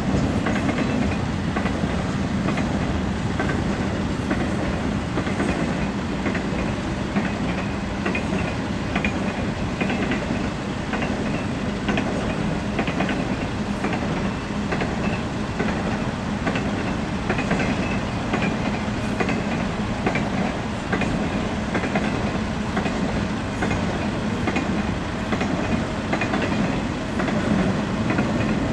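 Double-stack intermodal container freight train rolling past: a steady noise of steel wheels on the rails, with frequent small clicks over the joints.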